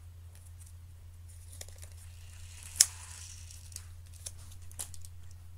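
Small bracelet packages being handled and torn open: rustling and tearing, with a sharp click about halfway through and a smaller one about two seconds later.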